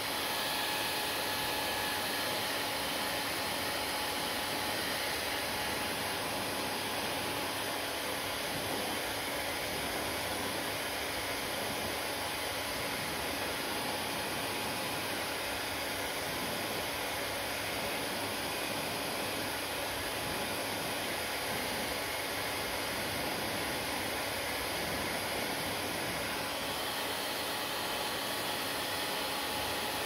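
Panasonic hand-held hair dryer running steadily: a constant rush of air with a faint, even hum in it.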